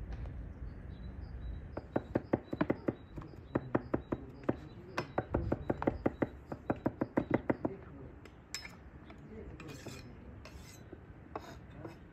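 A long thin wooden rolling pin clacking against a wooden board as dough is rolled out: a quick run of sharp clicks, several a second. Softer scraping and rustling follows near the end.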